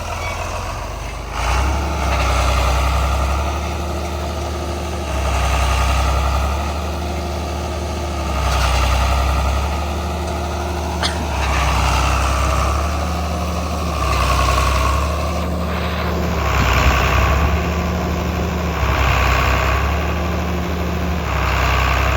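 Heavy diesel engine of a farm tractor running under load, its note swelling and easing off every two to three seconds.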